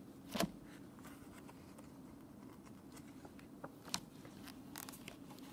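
A picture book's paper page being turned: a short rustle about half a second in, then a few faint paper clicks and taps as the book is handled, over a low steady room hum.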